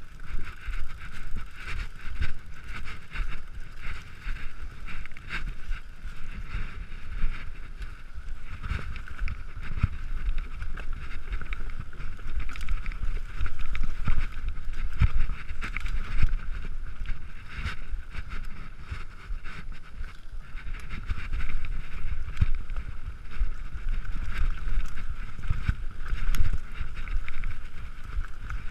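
Mountain bike riding fast down a rough forest trail: a constant rumble of tyres and wind buffeting the microphone, with frequent rattles and knocks as the bike runs over roots and rocks.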